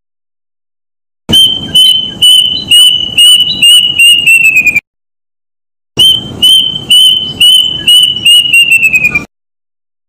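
A cuckoo calling: two runs of clear whistled notes, each run speeding up and falling slightly in pitch toward its end, with a short pause between them.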